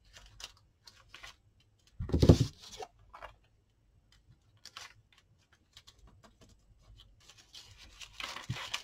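Baking paper being handled and pressed down on a craft table, with small scattered ticks and scratches. There is one loud dull thump about two seconds in. Near the end comes a rustling scrape as the paper is rubbed flat by hand.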